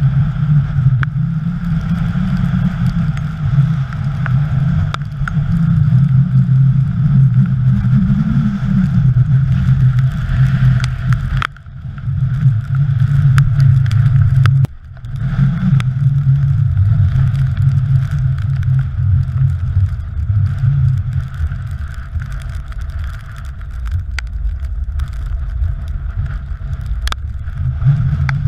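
Strong wind buffeting a GoPro Hero3's microphone: a heavy, continuous low rumble that rises and falls with the gusts and drops out suddenly twice in the middle, with a few faint knocks from handling.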